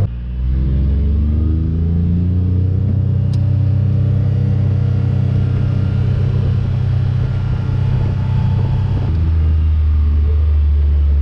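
A vehicle engine running under load as it pulls away, its pitch climbing over the first few seconds, then holding steady, and dropping back lower about nine seconds in.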